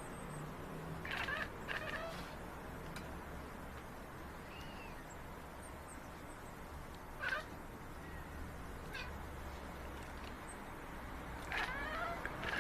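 Domestic cats meowing: short, separate meows every few seconds, a pair about a second in, a single one about seven seconds in, and a quick string of meows near the end.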